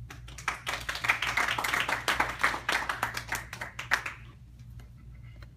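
A small audience clapping for about four seconds, then dying away.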